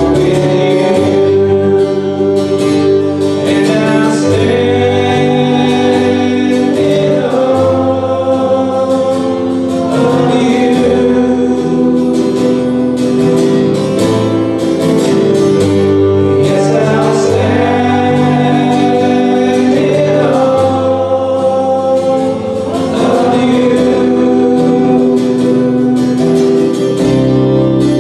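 Voices singing a gospel worship song together over instrumental accompaniment, with held bass notes that change every couple of seconds.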